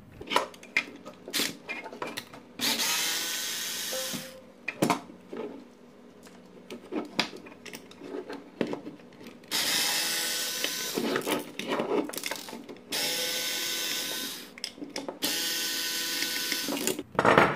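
Cordless drill-driver backing out small screws, its motor running in several short bursts of a second or two, with clicks and knocks of handling the plastic lamp housing between runs.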